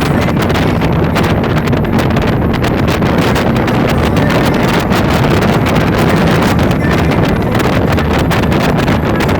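Speedboat running fast over open water, with strong wind buffeting the microphone.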